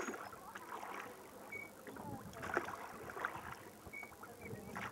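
Small rowing boat under way on a lake: irregular knocks and water noise from the oars working in the oarlocks, with a few short high chirps.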